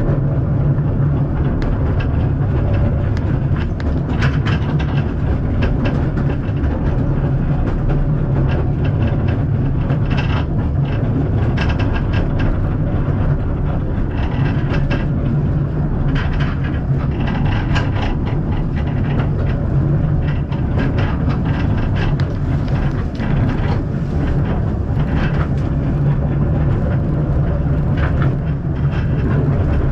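Narrow-gauge steam train's passenger carriage running, heard from inside: a steady low rumble with frequent rattles and clicks from the wheels and carriage.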